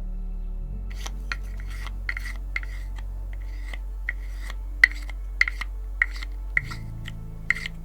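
A hand tool working wood in short, sharp strokes, about two a second, starting about a second in, over a low steady drone of background music.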